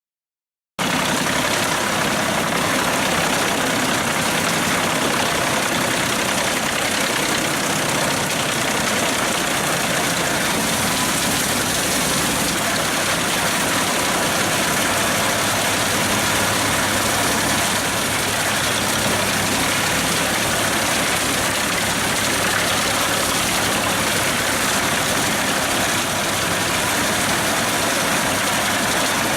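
A 220 hp Fendt tractor running steadily with the Pezzolato PTH 700 G drum wood chipper that it drives through its PTO. The sound cuts in abruptly about a second in and then holds at an even level.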